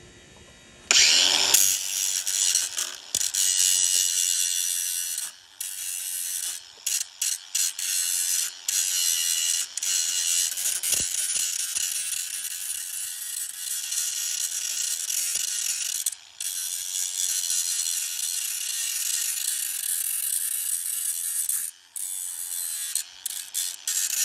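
A handheld electric power tool spins up about a second in, rising in pitch, then runs at high speed with a dense, high abrasive hiss as it works the hatchet, broken by several brief gaps.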